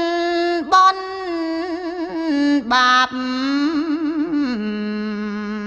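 A woman chanting Khmer Buddhist smot in a single voice. She holds long notes decorated with wavering ornaments, then drops to a lower held note about three-quarters of the way through.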